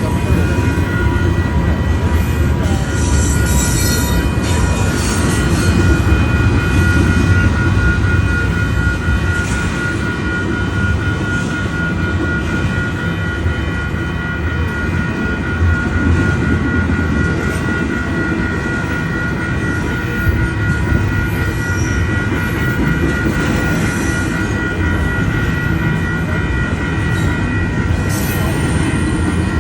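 A train running through a grade crossing, its wheels rumbling and clattering on the rails, while the crossing's WCH Type 1 E electromechanical bell rings on without pause, heard as a steady high ringing over the train.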